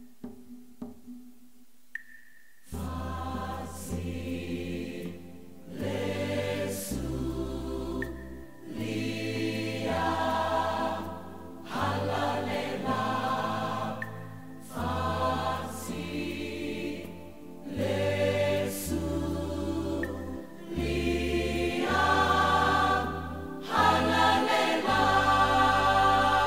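Choral music: a choir singing in phrases over held low bass notes, starting about three seconds in after a few soft clicks.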